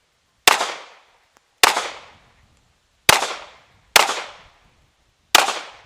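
Five pistol shots fired in a timed string, paired for two hits per target: two about a second apart, two in quick succession, and a fifth near the end. Each shot is a sharp crack with a short fading echo.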